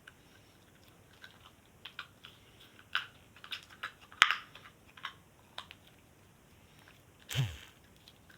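Homemade slime with foam cubes mixed in, handled and squeezed, giving scattered crackling clicks, the loudest about four seconds in. Near the end comes one longer squelch that drops in pitch.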